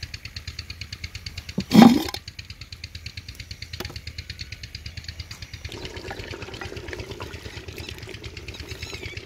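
A clay lid is lifted off a glazed earthenware cooking pot with a loud, short clatter about two seconds in. From about six seconds there is a steady watery hiss as the simmering meat curry is stirred with a wooden spoon. Under it all an engine runs with a fast, regular thud.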